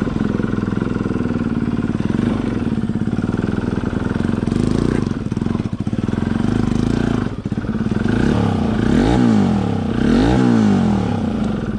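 Motorcycle engine running under way. Near the end it rises and falls in pitch twice as the throttle is opened and closed.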